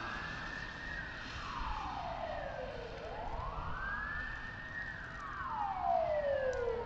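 Emergency-vehicle siren in a slow wail, rising and falling in pitch about twice, over low road rumble.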